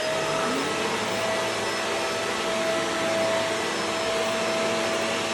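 Vacuum cleaner running, just switched on: its motor whine rises to full speed in the first half second, then holds steady with a rushing of air.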